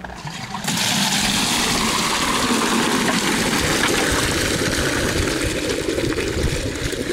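Digester effluent pouring from a PVC outlet pipe into a plastic bucket. It starts suddenly about a second in and runs steadily. The outflow is slurry displaced by the feed going into the digester.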